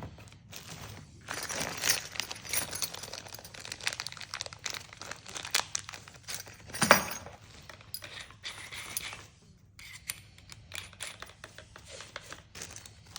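Packaging being handled: crinkling and rustling with scattered clicks, a sharper knock about seven seconds in, and a brief lull before the rustling resumes.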